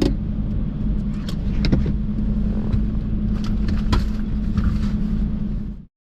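Steady low engine hum with a few sharp clicks and knocks over it, cutting off abruptly near the end.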